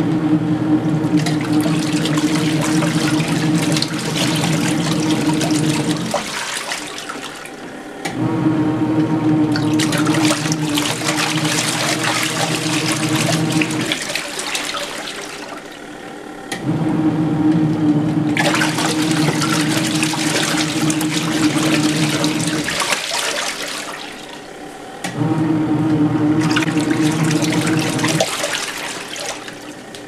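Kuppet twin-tub portable washer's wash motor driving the pulsator, with water churning and sloshing in the tub. The motor hums in four spells of about six seconds each, with a pause of about two seconds between them.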